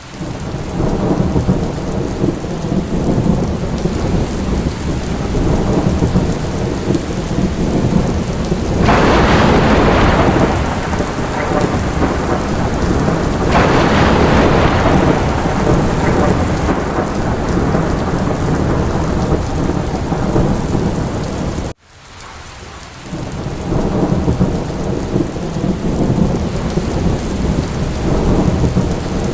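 Steady rain with low rumbling thunder, the downpour swelling into two louder, hissing surges about a third and halfway through that fade away. Near two-thirds through the sound cuts out for an instant and then fades back in.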